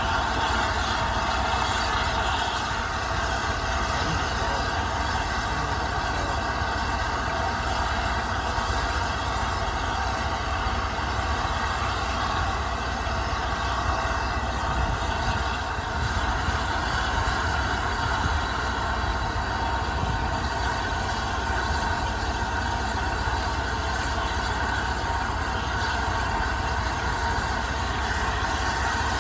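Steady running noise of a train in motion, an even rumble with no distinct exhaust beats.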